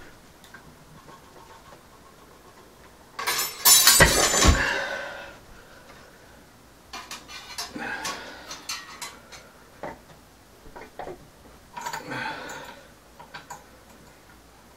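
Metal clanking with ringing and two heavy thuds about four seconds in, from the loaded anvil horn stub and its iron weight plates being handled, then lighter metallic rattles and clicks.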